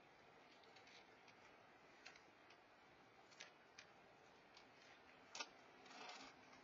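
Near silence broken by faint, irregular clicks: a cat crunching dry kibble, with one sharper click about five seconds in.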